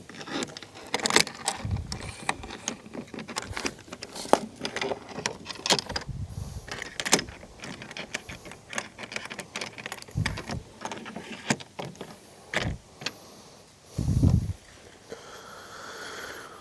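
Irregular clicks, taps and rattles of plastic and metal mounting hardware being handled and fitted, with a few short, dull thumps.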